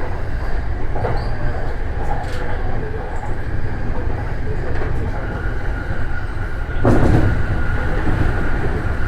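Commuter train running along the line, heard from inside the front car: a steady rumble of wheels on rail. A thin high-pitched whine comes in about halfway, and a louder clatter follows about seven seconds in.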